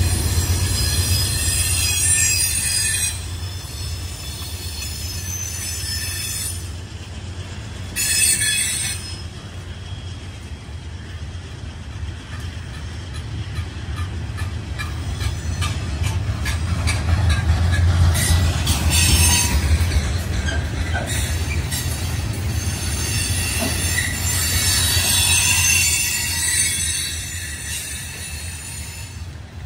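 Freight cars loaded with steel coils rolling past: a steady low rumble of wheels on rail, with clicks as the wheels cross the rails that are thickest in the middle. High-pitched wheel squeal comes and goes several times: at the start, briefly about eight seconds in, and twice more in the second half.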